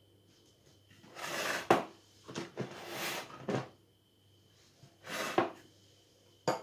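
A baking tray slid and turned on the kitchen worktop, in a few scraping drags: a long one about a second in, a broken one lasting about a second and a half, and a shorter one around five seconds. A short sharp knock comes near the end.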